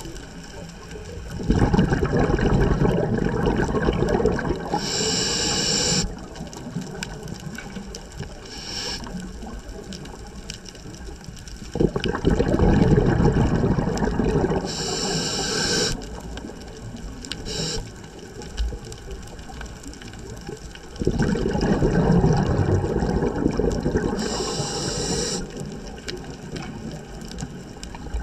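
A scuba diver breathing through a regulator underwater: three long rushes of exhaled bubbles about ten seconds apart, each ending in a short high hiss.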